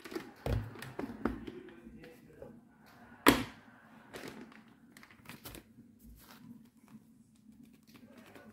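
Plastic clicks and knocks as the motor head and lid of a hand-blender chopper bowl are taken off and handled, with one sharp loud knock about three seconds in.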